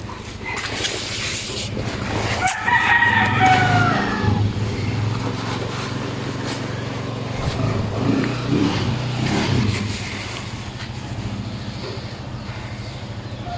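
Kawasaki Barako 175's single-cylinder four-stroke engine running steadily just after being started, during a check of its hard-starting problem. A rooster crows loudly about two and a half seconds in.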